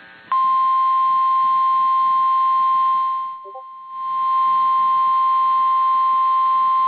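NOAA Weather Radio 1050 Hz warning alarm tone: a single steady high beep tone received over the radio, announcing a National Weather Service warning broadcast. It starts a moment in, drops out briefly about three seconds in, then comes back.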